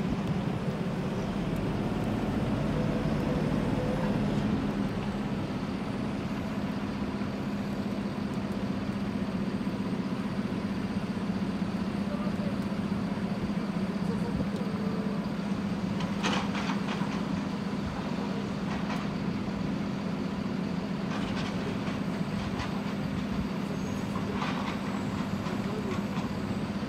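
Truck-mounted mobile crane's diesel engine running steadily while hoisting a large fuel storage tank, with a few short clanks in the second half.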